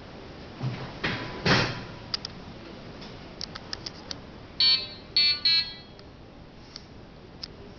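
A brief rustle of handling about a second in, then, around the middle, three short buzzy electronic beeps from the Tecar diathermy unit, with a few light clicks between.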